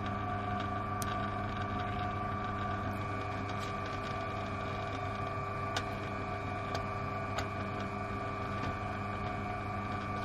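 Peugeot Outillage pillar drill running steadily with an even motor hum as its bit is fed down into a block of wood, with a few light ticks.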